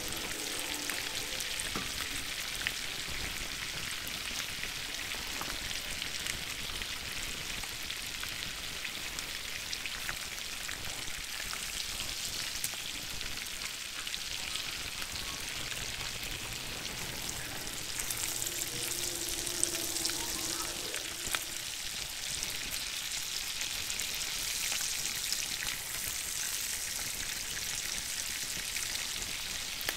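Bass fillets frying in garlic-herb butter in a stainless skillet, with a steady sizzle. A few light clicks come from the slotted spatula touching the pan.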